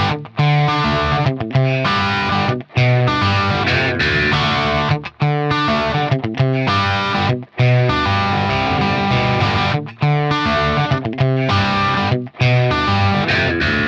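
Stratocaster electric guitar played through a BSM 71/73 treble booster into a crunchy Vox-style amp, giving a bright, lightly overdriven hard-rock tone. Riffs and chords come in phrases broken by short stops about every two and a half seconds.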